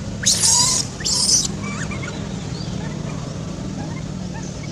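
Baby macaque squealing in two short high-pitched screams in quick succession, followed by faint squeaks, over a steady low hum.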